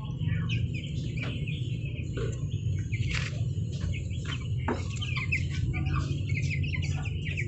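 Chicks peeping: many short, high chirps overlapping continuously, over a steady low hum.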